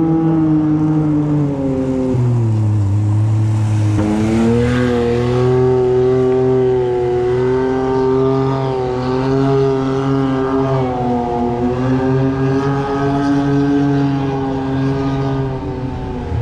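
Dirt-track race car engine running laps on the track, its note falling about two seconds in, climbing again a couple of seconds later, then holding with small rises and dips as the throttle is worked through the turns.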